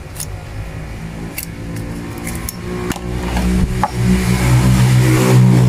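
A motor vehicle engine running steadily and growing louder through the second half, with a few light clicks early on.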